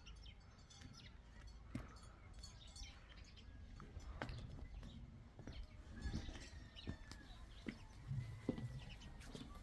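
Birds chirping faintly, with scattered small clicks and knocks over a low rumble.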